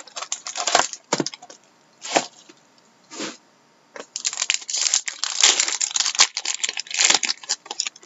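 Plastic wrapping on a sealed trading-card box being torn open and crinkled by hand, crackling in short bursts at first and then a dense run of crackle and tearing from about four seconds in.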